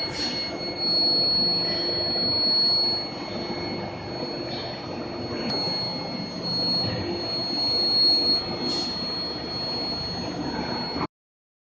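Induction heating line for steel torsion bars running: a steady high-pitched whine over dense machinery noise, with a couple of short knocks. The sound cuts off abruptly near the end.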